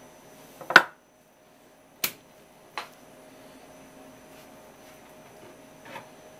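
A few sharp clicks and light taps as hands handle a block of raw tuna on a wooden cutting board, the loudest under a second in, over a steady faint hum. The sound drops out briefly just after the first click.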